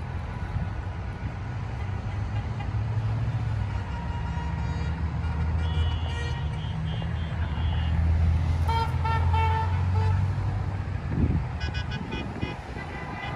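Pickup trucks and cars driving past, their engines swelling and fading as they go by, with car horns honking over them: a held honk around the middle, a run of quick short beeps soon after, and more quick beeps near the end.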